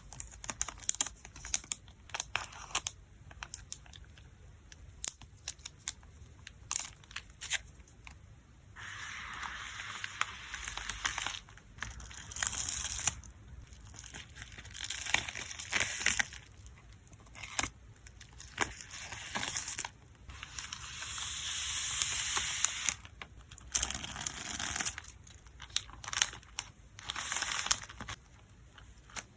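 Photocard packing handled close up: plastic sleeves and packaging crinkling and rustling, with light taps and clicks. The first several seconds are mostly scattered taps and clicks, followed by a few longer stretches of rustling or tearing plastic.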